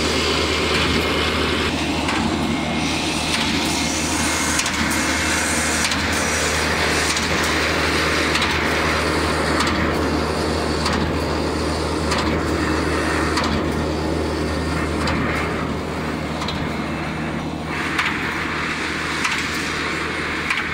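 Automatic wire straightening and cutting machine running: a steady motor hum under the rushing noise of wire feeding through the straightening rollers, with a sharp knock every second or two as bars are cut to length.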